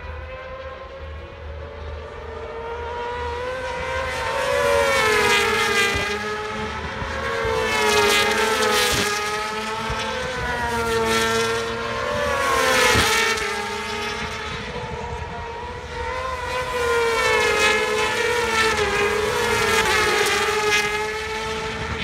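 Racing motorcycles at high revs, passing one after another, the engine pitch rising and falling as they go by.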